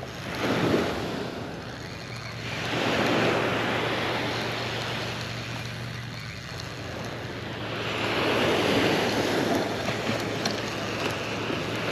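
Small surf waves breaking and washing up the sand, rising and falling in three swells a few seconds apart.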